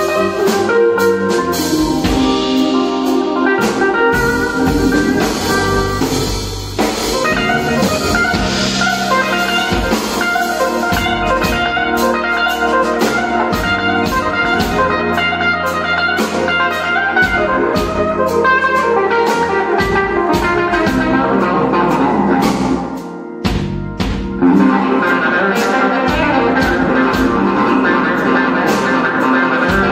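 Live blues-rock band playing: a Les Paul-style electric guitar carries the lead over a drum kit. The band drops back for a moment about three quarters of the way through, then comes back in on a loud hit.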